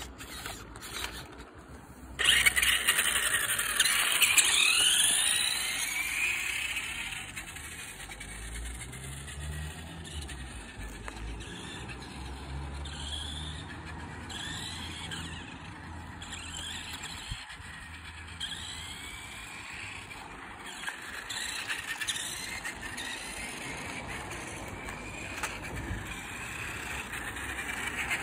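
1/5 scale Nikko radio-controlled motorcycle's electric drive whining, its pitch rising and falling as it speeds up and slows down. The whine starts suddenly about two seconds in and is loudest in the following few seconds.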